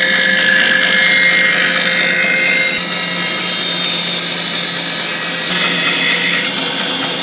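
Axminster BS-11 bandsaw running and ripping a thin edging strip off a wooden board along the fence: a steady motor hum under the hiss of the blade cutting through the wood, the cutting sound shifting slightly about five and a half seconds in.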